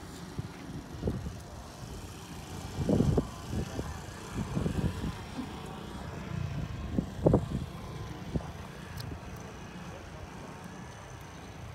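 Wind buffeting the microphone: a steady low rumble with stronger gusts about three, five and seven seconds in.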